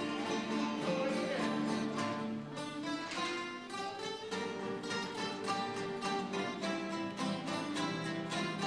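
Acoustic guitar music: several guitars playing together, with quick plucked and strummed notes in a steady rhythm.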